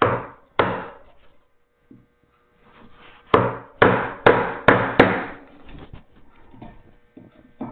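Mallet striking a chisel, chopping a mortise by hand in wood. Two blows, a pause, then five quicker blows in a row, with lighter taps after.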